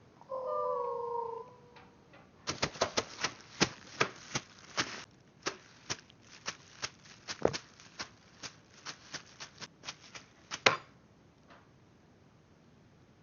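A short cry that falls in pitch, then a long run of sharp, irregular clicks or taps, a few each second, that stops about eleven seconds in.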